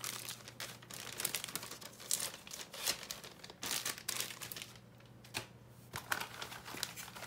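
Clear plastic packaging bag crinkling and crackling irregularly as it is handled and pulled out of the box.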